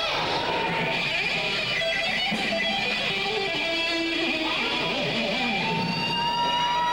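Live rock band playing, led by electric guitar. Near the end one guitar note is held for over a second.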